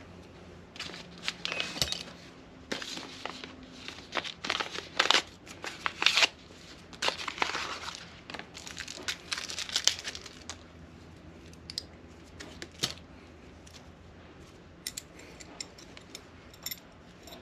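Packaging crinkling and tearing in repeated bursts for the first ten seconds or so, followed by scattered light clicks and taps as small engine parts are handled.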